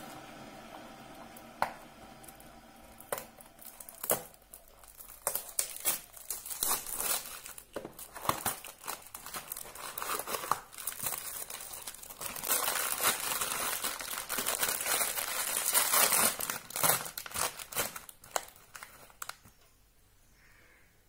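A cardboard box opened with a few sharp clicks of its flaps, then a foil sachet crinkling and tearing as it is ripped open, the crinkling loudest and most continuous past the middle.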